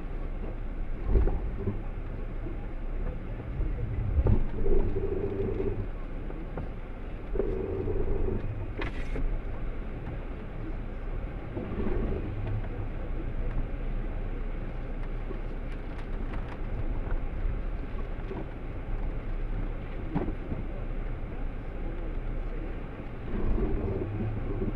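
Jeep engine running at low revs in first gear, heard from inside the cabin as it creeps down a rough track, with a few knocks from the body and suspension over the ruts.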